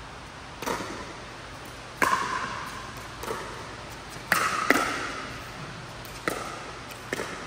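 Pickleball paddles striking a plastic pickleball in a doubles rally: about eight sharp pops a second or so apart, each ringing on briefly in a large indoor hall.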